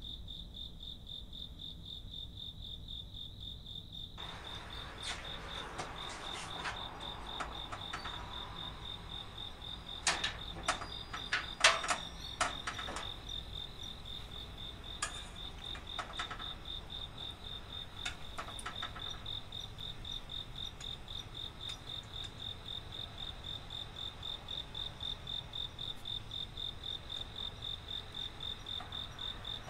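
A cricket trilling steadily on one high, evenly pulsing note. From about four seconds in come clusters of light clicks and taps of chopsticks against a hammered metal saucepan, loudest around ten to thirteen seconds in.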